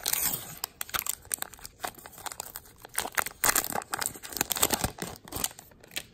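Plastic foil wrapper of a baseball card pack crinkling as it is opened and handled: a dense run of crackles that dies away near the end.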